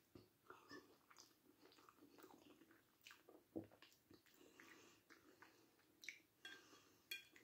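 Faint chewing of a mouthful of food: scattered soft wet clicks and smacks from the mouth, irregular, the most distinct about three and a half seconds in.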